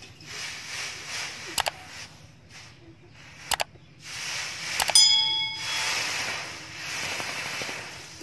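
Hot steel knife blade quenching in a trough of water, hissing and bubbling in swells. A few sharp metal clicks come from the tongs and blade, and about five seconds in one strike rings out briefly as a clear metallic ding.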